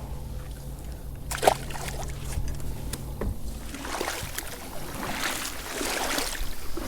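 A kayak being paddled, with water sloshing and splashing against the hull. The water noise grows louder from about four seconds in, and there is a sharp knock about one and a half seconds in.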